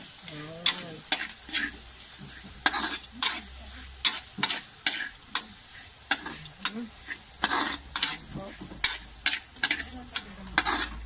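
A metal spatula scraping and clinking against a stainless steel wok while stirring grated santol and ground pork, in sharp irregular strokes a few times a second. A steady sizzle of frying runs underneath.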